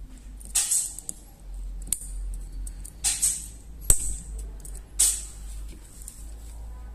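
Tweezers working small metal parts inside a stripped Jericho 941 FB pistol frame: a series of short metallic scrapes and clinks, with one sharp click about four seconds in. A low steady hum runs underneath.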